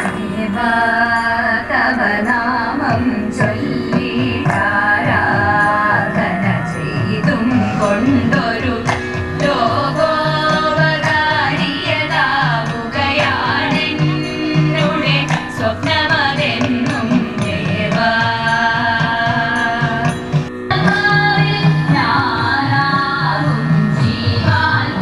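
Carnatic-style music: a singing voice winding over a steady drone, with drum strokes throughout.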